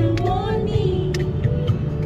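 Background music: a pop track with a steady bass line, held notes and a sung melody line, with sharp percussion hits.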